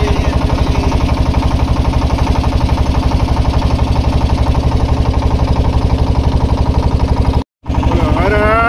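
An engine running steadily with a fast, even pulse. The sound cuts out completely for a moment near the end.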